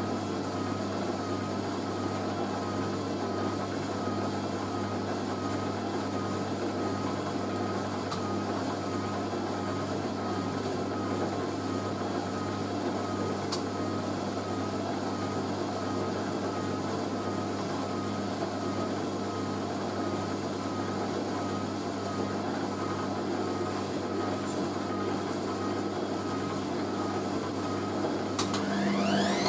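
Hoover A3060 Electronic 1100 washing machine running in its final spin cycle, with a steady hum and a wavering whine from the turning drum. Near the end the motor whine rises and grows louder as the drum speeds up.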